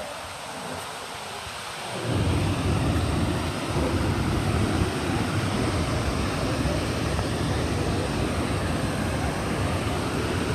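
Waterfall's water rushing and splashing in a steady roar, with a deeper rumble that grows louder about two seconds in.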